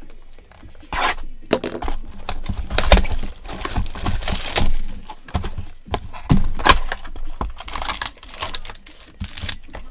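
Plastic card packaging and sleeves crinkling and rustling as trading cards are handled in gloved hands, with many small clicks and snaps mixed in.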